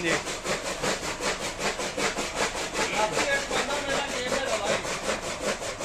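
Electric chaff cutter chopping green fodder stalks as they are fed in: a fast, even chopping rhythm of about five cuts a second from the flywheel blades.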